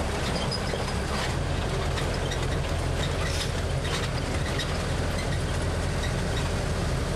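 Open-sided tour tram driving along a rough track: its engine running with a steady low hum while the body and frame rattle and clatter over the bumps.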